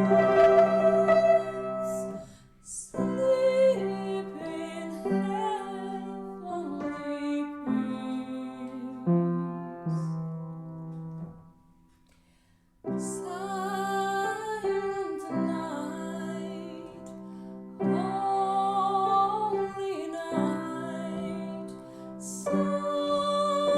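A Christmas carol sung over piano accompaniment, the voice holding long wavering notes, with a brief pause about halfway through before the music resumes.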